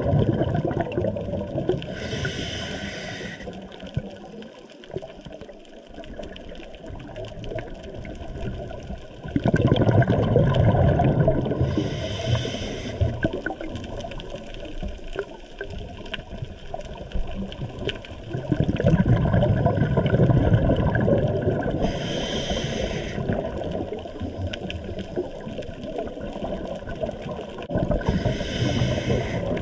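Scuba diver breathing underwater through a regulator: four short hissing inhalations through the demand valve, with long bursts of bubbling exhaust between them.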